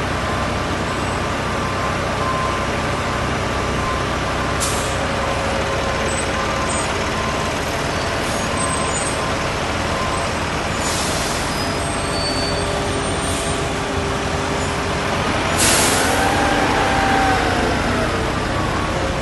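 Heavy diesel trucks running steadily at a concrete pour. Sharp air hisses come three times, the last and loudest about three-quarters of the way in, followed by a tone that rises and then falls.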